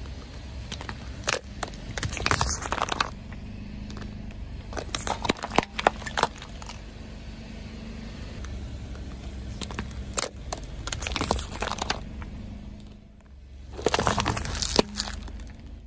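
A car tyre rolling over plastic Play-Doh tubs, cracking and crunching the plastic tubs and their lids in several bursts, over the low steady hum of the car. Near the end another run of crunching as a printed cup starts to go under the tyre.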